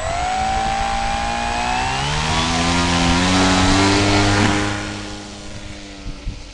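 Electric motor and propeller of a 1.4 m FMS Spitfire model plane running up with a rising whine to full throttle for the hand launch, then fading about five seconds in as the plane flies off.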